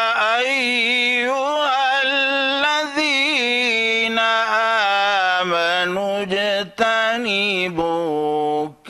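A man reciting the Quran in the melodic, chanted tajweed style, drawing out long ornamented notes with a wavering pitch. The pitch settles lower about halfway through, and the voice breaks off briefly near the end.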